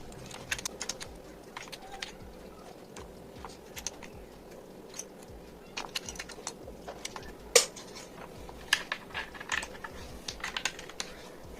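Akko 5075S mechanical keyboard being handled: irregular, scattered key clicks and clacks, with one louder clack about seven and a half seconds in.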